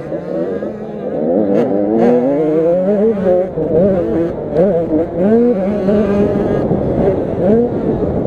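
85cc two-stroke motocross bikes revving hard, their engine pitch rising and falling rapidly and overlapping as they ride the track; the engines get louder about a second in.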